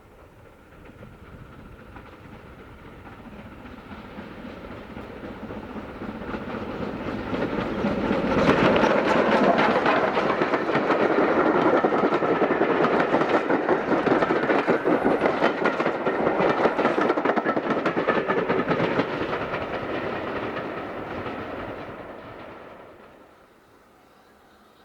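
Steam-hauled train passing: it builds up from a distance, runs loudest for about ten seconds with rapid clatter of wheels over the rails, then fades away near the end.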